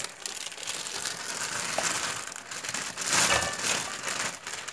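Clear plastic bag crinkling and rustling as frozen green beans are shaken out of it into a wok, louder about three seconds in.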